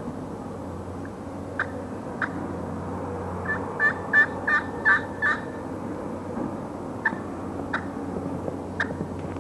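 Titanium-over-slate turkey pot call worked with a striker: a few single clucks, then a run of about six yelps around the middle, then more single clucks near the end.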